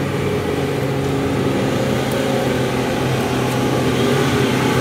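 Ford Everest's turbodiesel engine running at a steady pitch, getting slowly louder.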